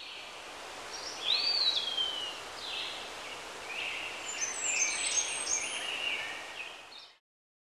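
Birds calling, many short high chirps and whistles, one of them a rising-then-falling slide, over a steady hiss of outdoor ambience. It cuts off suddenly near the end.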